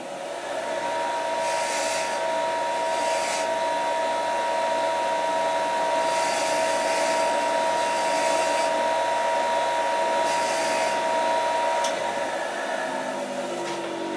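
Bench grinder running with a steady whine, the cut end of a small steel machine screw pressed against the grinding wheel in three spells to deburr it, each with a hissing grind. About twelve seconds in, the grinder is switched off and winds down.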